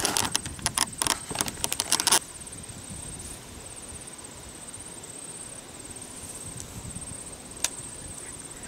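A quick run of sharp clicks and rattles for about two seconds, like gear being handled. After that a steady high-pitched insect trill carries on, with one more click near the end.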